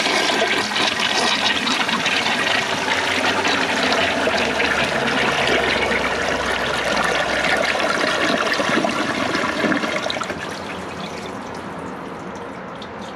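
Kohler Wellworth Ingenium toilet flushing from an overfilled tank, its siphon jet defective: a loud rush of water for about ten seconds, then a drop to a quieter, steady running of water.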